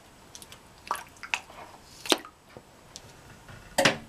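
Hands and a knife working raw pork spare ribs on a foil-lined tray, pulling the membrane off the bone side: scattered wet squishes and small clicks, with a louder crackle near the end.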